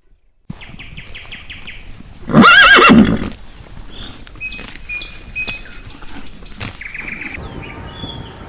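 A horse whinnying once, loud and about a second long, its pitch quivering up and down. Fainter ticks and short chirps sound around it.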